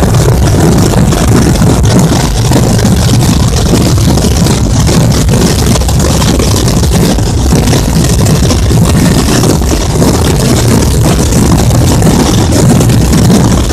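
Hundreds of Bajo Aragón Holy Week drums, snare-type tambores and big bombos, playing all together in a dense, continuous roll, loud and unbroken.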